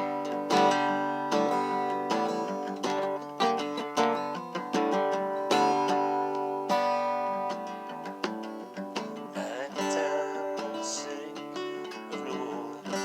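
Acoustic guitar strummed in steady chords, a stroke roughly every half second to second, a little softer in the last few seconds.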